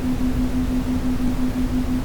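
Brown noise: a steady, deep rushing noise weighted toward the low end, with a steady low hum running through it that flutters rapidly.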